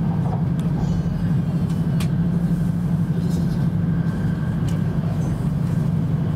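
Cabin running noise of a Tohoku Shinkansen Hayabusa train at speed: a steady low drone with a few faint clicks, about two seconds in and again near the end.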